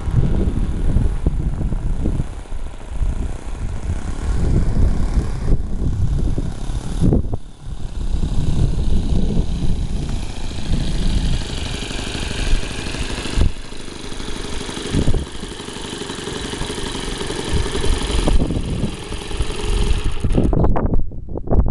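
Falcon 56 RC model airplane's motor droning in flight, swelling and fading as it passes, over heavy low rumble. The sound cuts off abruptly near the end.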